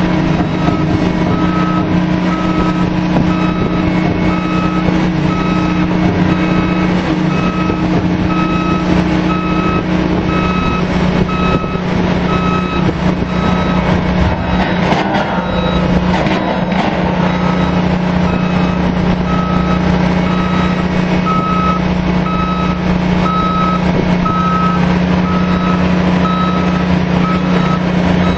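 Regular warning beeps from moving equipment over the steady drone of running rig machinery. The beeping breaks off for a few seconds around the middle, where there is a short stretch of clatter, and then starts again.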